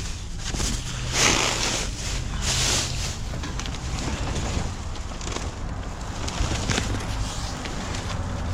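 Car running, with a steady low engine hum under road and wind noise; there are louder hissy swells in the first few seconds.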